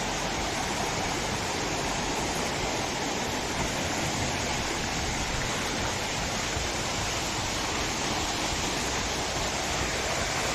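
Steady rush of a waterfall, a dense, even hiss of falling water.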